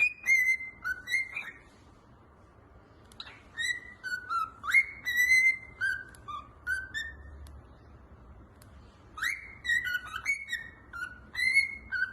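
A small pet bird whistling: three runs of short, sliding whistled notes, each run a few seconds long, with brief pauses between them.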